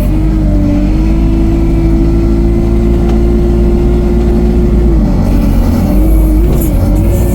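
All-terrain vehicle's engine running loudly while under way, a steady drone that drops in pitch about five seconds in and wavers up and down near the end as the load changes.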